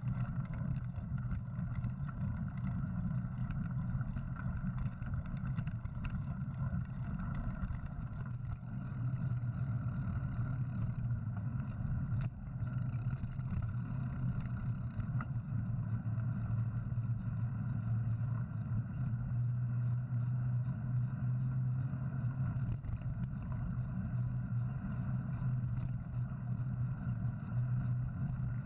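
Steady low rumble of wind buffeting and tyre noise on a camera carried along on a mountain bike rolling over a dirt and rock trail, with a few faint ticks.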